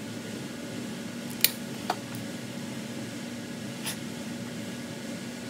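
Three short, sharp metal clicks, the first the loudest, as a small puller and hex key are worked on and taken off a transfer-case actuator shaft, over a steady background hum.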